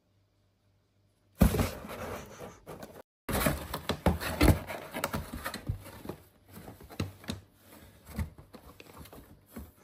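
A kitten scrambling into and through a cardboard box: the cardboard flaps rustle, scrape and knock with many quick clicks as it moves. The sound starts suddenly about a second and a half in.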